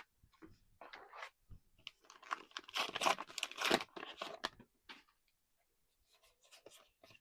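Trading card booster pack wrapper being torn open and crinkled, a busy run of tearing and rustling strokes loudest in the middle, with lighter handling rustles around it.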